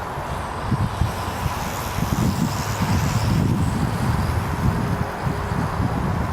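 Gusty wind buffeting the microphone in a continuous low rumble, with the faint steady hum of a small quadcopter's motors behind it.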